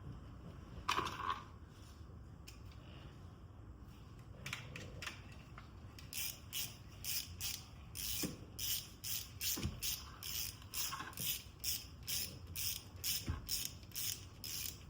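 Ratchet wrench clicking in short regular strokes, a little over two clicks a second, as it drives in the retaining screw of a newly fitted camshaft position sensor. A single metal clink sounds about a second in.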